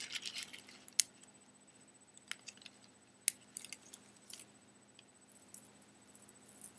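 Small beads on a beaded necklace clicking and jingling against each other as it is lifted, dangled and bunched in the hand, with two sharp clicks about a second and about three seconds in. Tissue paper crinkles briefly at the start.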